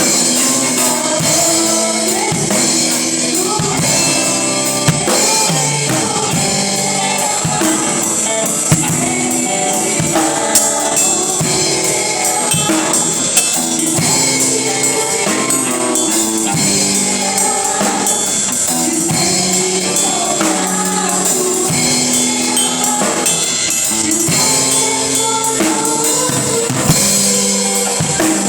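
Live gospel worship music: a band with a drum kit and tambourine playing a steady beat under singing voices.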